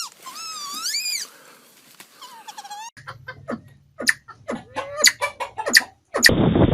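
Pheasant calls: a couple of drawn-out calls that rise and fall in pitch, then a rapid series of short, sharp chirps and clicks.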